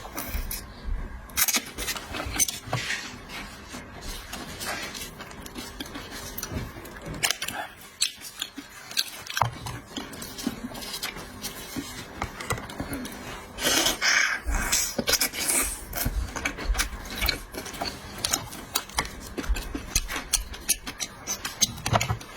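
Close-up eating sounds of shrimp: irregular clicks and cracks of shells being peeled, with chewing, in a dense cluster about two-thirds of the way in and a short lull before it.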